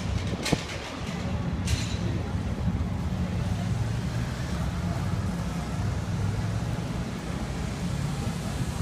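City street traffic: a steady low rumble of passing vehicles, with a sharp click about half a second in.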